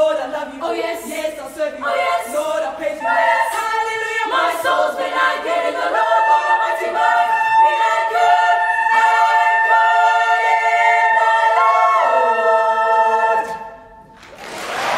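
Girls' choir singing a cappella, moving into long held chords to close the piece. The singing stops near the end, and applause and cheering start to rise.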